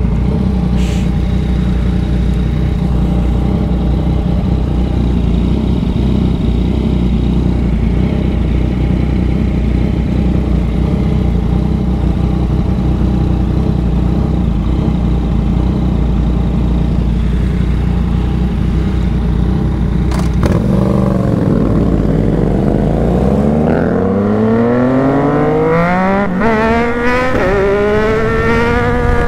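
Yamaha MT-09 three-cylinder motorcycle engine running at a steady, unchanging pitch, then about twenty seconds in accelerating hard through the gears, its pitch climbing and dropping back at each shift.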